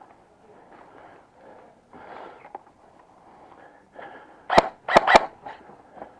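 Three sharp cracks of airsoft gunfire in quick succession, a little over four seconds in, over low rustling.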